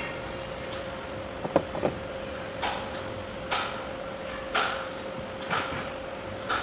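Metal tractor axle parts being handled: two sharp metal knocks about a second and a half in as the bearing cover plate is set down, then short rasping sounds about once a second while a ball bearing is picked up and handled, over a steady hum.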